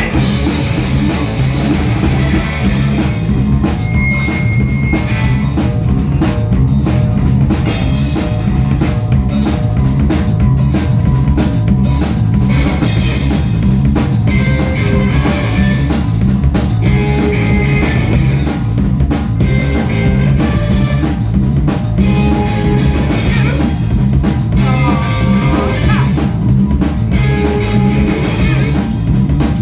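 Live rock band playing loud, with a steady drum-kit beat, distorted guitar and bass, heard through an audience-held phone microphone in the room.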